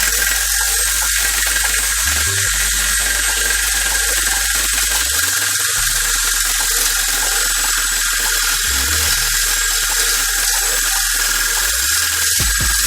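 Homemade angle grinder running steadily: a high whine over a hissing noise.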